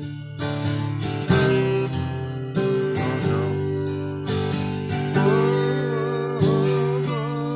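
Strummed acoustic guitar playing an instrumental break in a song, a strong chord strum roughly every second and a quarter, with a wavering melody line over the chords.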